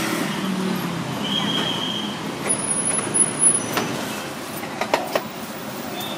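Steady street traffic noise, with a few sharp clicks about three to five seconds in.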